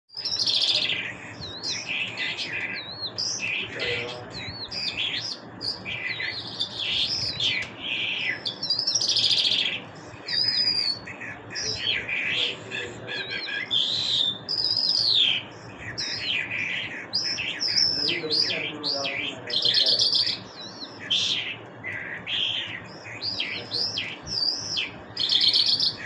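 Caged lark singing a long, unbroken, varied song of rapid high chirps, trills and short whistled slides, phrase after phrase with hardly a pause.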